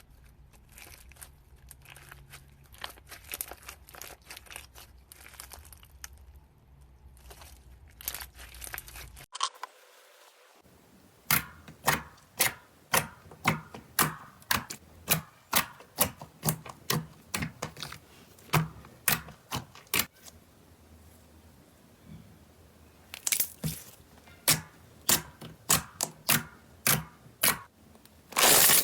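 Slime being squeezed and pressed by hand, with a faint, dense crackling at first. About nine seconds in it changes to a run of sharp pops or clicks, about two a second, with a further burst of pops near the end.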